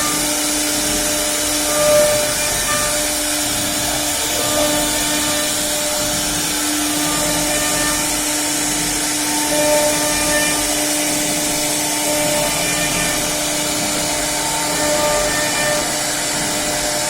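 CNC router running steadily, a continuous hum and whine over a hiss, with a few small swells in level.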